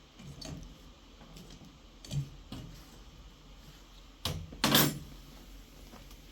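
Household handling sounds: a few light knocks, then two loud knocks about four seconds in, the second one longer, like a door or lid being knocked shut.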